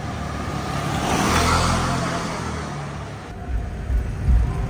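A motor vehicle passing by on a street, its engine and tyre noise swelling to a peak about a second and a half in and then fading. A little after three seconds the sound changes abruptly to low, uneven thuds.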